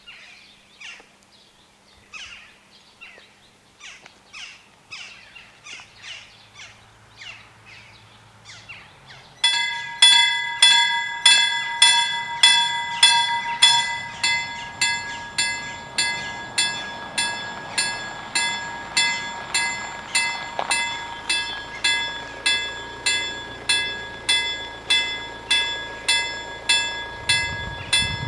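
Level-crossing warning bells ringing in even strokes, about one and a half a second. They are faint at first; about a third of the way in a much nearer, louder bell takes over. A low rumble of the approaching freight train rises at the very end.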